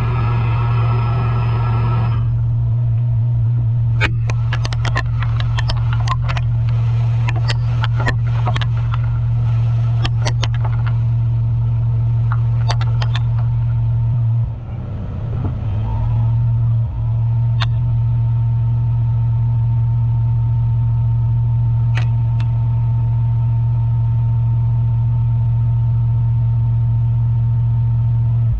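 Nakamura-Tome WT-150 II CNC turning centre cutting aluminium at speed: a steady, loud low drone. Many sharp clicks come between about four and eleven seconds in, as chips strike the machine's guard. From about halfway on, a thin steady whine joins the drone.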